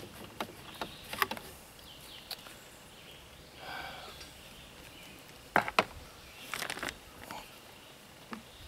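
Scattered clicks and knocks of a screwdriver and hands working on a string trimmer's plastic shroud and fuel tank, the loudest a quick double knock a little past halfway.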